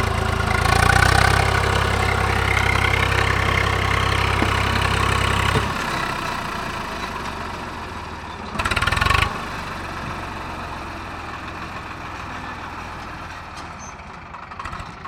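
Swaraj 735 FE tractor's three-cylinder diesel engine working hard, pulling a loaded trailer through soft soil, with a brief rise about a second in. About five and a half seconds in it drops off sharply and runs on more quietly, fading. There is a short burst of noise about nine seconds in.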